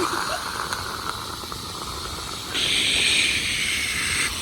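Steady hiss of spraying water, shifting to a louder, higher hiss about two and a half seconds in.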